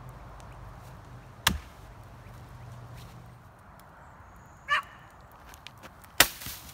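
A thrown axe strikes a tree with a sharp thunk about a second and a half in. Near the end a small Fiskars X15 chopping axe bites into a log with a louder single chop. Between the two there is a short high-pitched cry.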